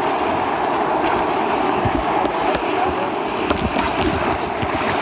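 River rapids rushing steadily around a canoe as it runs the whitewater, with a few low thumps.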